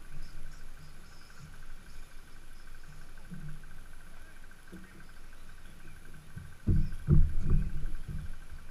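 RC stadium trucks running on a dirt track, with a steady faint high hum and a cluster of low rumbling thumps about seven seconds in.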